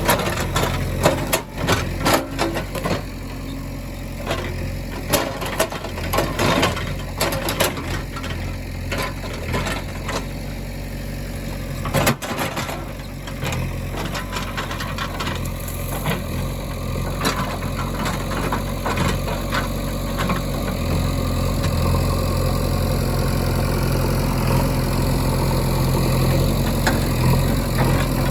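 Heavy diesel machinery working: an engine runs steadily throughout, with many clanks and rattles in roughly the first half, then a steadier, slightly louder engine sound toward the end.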